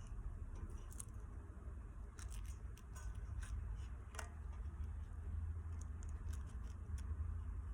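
Scattered small clicks and handling noises over a steady low hum.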